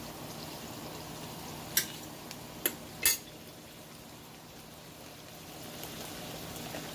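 A pan of corned beef, shrimp and malunggay cooking with a steady hiss, with three sharp knocks of something hard against the pan or a utensil about two and three seconds in.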